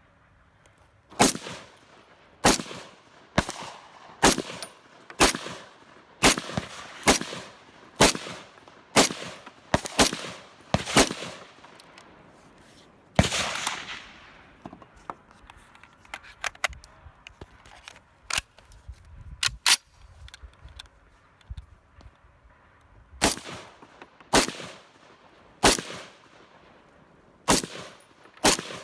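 Gunshots fired one at a time, about one a second, in a string of a dozen shots. After a pause and some fainter cracks, a second string of shots begins.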